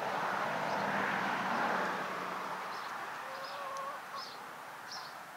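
A rushing noise swells and fades over the first two seconds or so. Then a hen gives a brief, low, wavering call, while a small bird keeps up short high chirps a little more than once a second.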